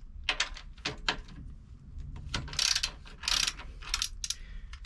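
Socket ratchet wrench undoing a bolt: separate clicks and several short runs of rapid ratchet clicking as the handle is swung back between turns.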